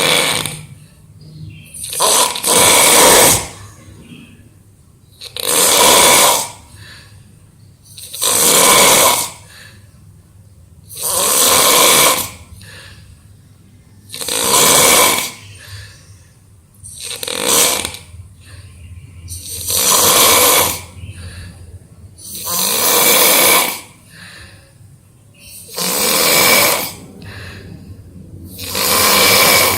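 A person snoring in the deep sleep of exhaustion: a loud, noisy snore about every three seconds, each lasting about a second.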